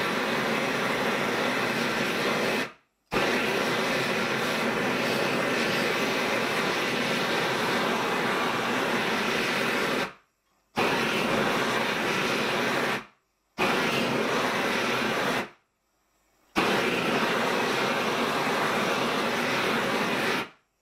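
Steady rushing noise of a gas torch flame heating a copper firebox tube plate to anneal it. The sound drops abruptly to silence four times, each for under a second.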